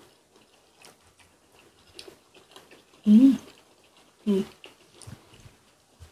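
Chewing and small mouth clicks from eating spicy braised cutlassfish and radish, with two short voiced exclamations about three and four seconds in.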